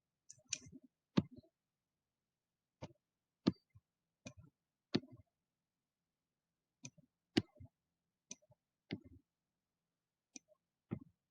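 Computer mouse clicking about a dozen times at uneven intervals, roughly once a second, as the poem's text is highlighted bit by bit.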